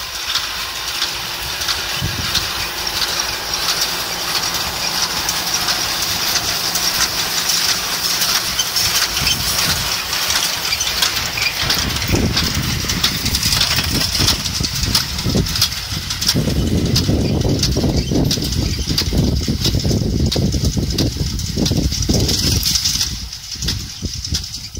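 John Deere 5100R tractor's diesel engine running steadily under load as it drives a New Holland 376 small square baler, with the baler's mechanical clatter and knocking as it picks up and packs hay. The low rumble grows louder about halfway through.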